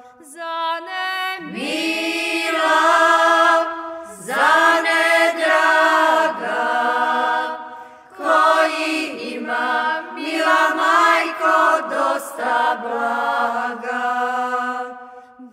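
Women singing a traditional Šokac folk song without accompaniment: a lead voice with a second voice following, in long drawn-out phrases broken by short breaths.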